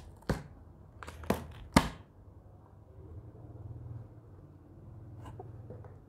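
Cardboard box being opened by hand: several sharp snaps and knocks in the first two seconds as the taped flaps give way, the loudest just before two seconds in, then quieter handling of the cardboard.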